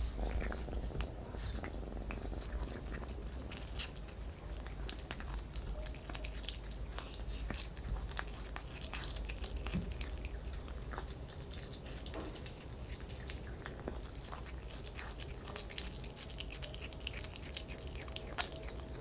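Tabby kitten chewing and biting raw chicken pieces: many small, irregular clicks of chewing, over a steady low hum.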